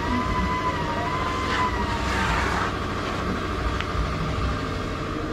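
A motor runs with a steady hum, a wavering high-pitched tone riding over it until about two and a half seconds in. A brief hiss rises around two seconds in.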